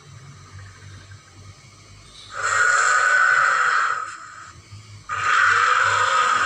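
Dinosaur sound effect for a Cryolophosaurus: two loud, breathy calls without a clear pitch, each about a second and a half long, the first about two seconds in and the second about five seconds in, over a quieter low breathing-like background.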